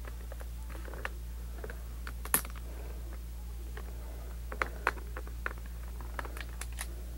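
Plastic VHS cassette shell and screwdriver being handled: scattered light clicks and taps, the loudest about two and a half seconds in and a small cluster near five seconds. A steady low hum runs underneath.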